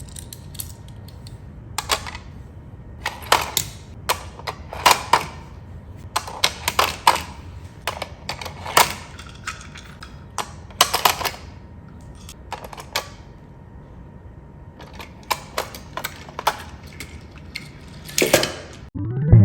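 Irregular sharp clicks and clacks, some single and some in quick clusters of two or three, over a faint steady hum.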